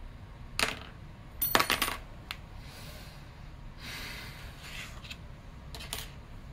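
Small metal lock-picking tools, a hook pick and a tension bar, being pulled from the lock and set down on a cutting mat. A sharp click about half a second in, then a short ringing metallic clatter, a lighter click, some soft handling rustle, and two more clicks near the end.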